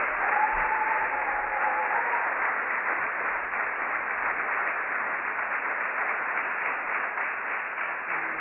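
Audience applauding, a dense, steady clapping that carries on without a break.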